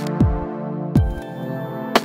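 Electronic background music: sustained synth chords over a deep kick drum whose pitch drops on each hit, striking twice, with sharp clicks at the start and end.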